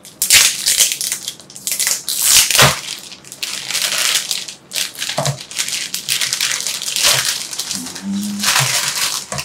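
Clear plastic packaging crinkling and rustling in irregular bursts as it is unwrapped and pulled off a silicone toilet brush by hand.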